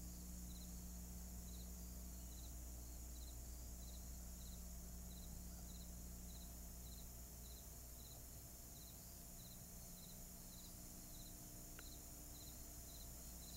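Faint cricket chirping steadily, about two short chirps a second, over a low steady hum.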